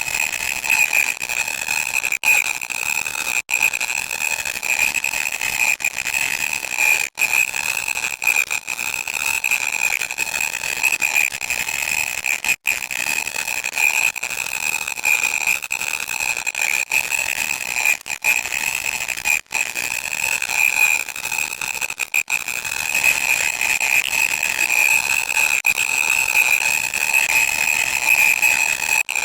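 Loud, harsh electronic static with a steady shrill tone running through it, broken by very short silent gaps every few seconds.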